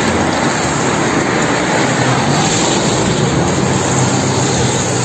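Steady street traffic noise with a low engine hum underneath.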